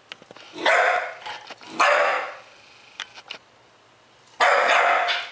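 Bull terrier puppy barking three times, each bark about half a second long, wanting to be let out.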